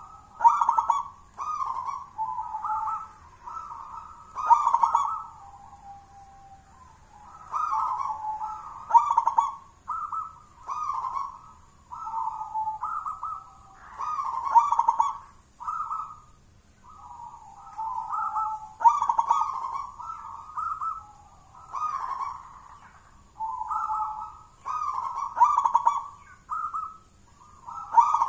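Zebra dove (perkutut) cooing: a continuous run of short, rhythmic, staccato coo phrases, about one a second with brief pauses between groups.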